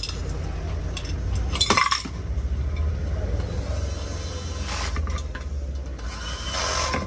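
Sharp metallic clinks and knocks as an aluminium pressure cooker and hand tools are handled on a metal workbench, the loudest about two seconds in, over a steady low hum.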